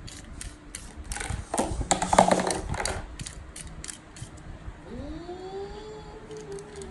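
Rapid ratcheting clicks of a small die-cast pull-back toy car's wheels and spring gearbox being wound against a hand, densest and loudest about two seconds in. About five seconds in the clicks give way to a low tone that rises, holds and slowly falls away.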